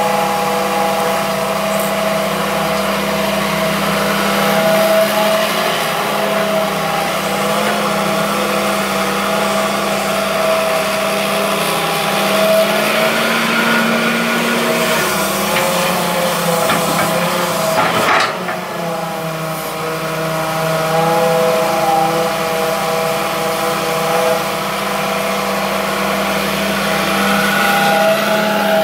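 Hitachi EX200-3 hydraulic excavator's diesel engine running steadily. Its pitch rises briefly about halfway through, and a single sharp knock comes a few seconds later.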